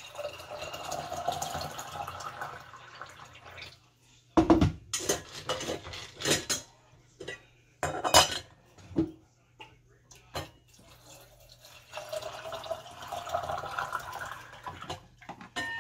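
Water poured from a small pot through a stainless steel canning funnel into a glass mason jar of dry beans, then a run of sharp clinks and knocks of metal against glass, then more water pouring near the end.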